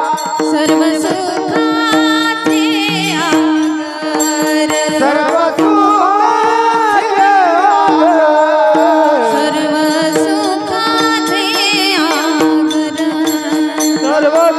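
Music: devotional kirtan singing with wavering, ornamented melody over a steady held drone and instrumental accompaniment.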